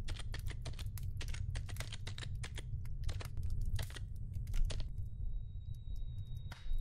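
Fast, irregular typing on a computer keyboard over a steady low rumbling drone. The typing stops about five seconds in, a thin high steady tone comes in, and a brief rush of noise follows near the end.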